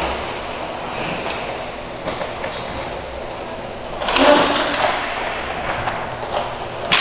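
Roller hockey play: the rattle and rolling of skate wheels on the rink floor, with sticks clacking. About four seconds in comes a sudden, louder burst of noise as play crowds the net.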